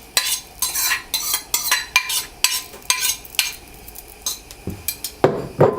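A spatula scraping and stirring grated coconut around a hot dry frying pan for dry roasting, in quick repeated strokes about two or three a second. A lower, duller clunk comes near the end.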